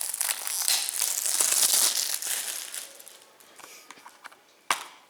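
Plastic shrink-wrap crinkling and tearing as it is pulled off and crumpled from a Blu-ray case, loudest in the first few seconds, then fading to small clicks. A single sharp click near the end.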